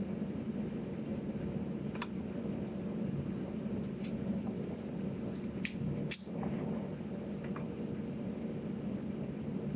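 A steady low hum, with scattered small sharp clicks and crackles as a pomegranate is broken apart and its seeds pulled out by hand. The clicks bunch together about four to six seconds in.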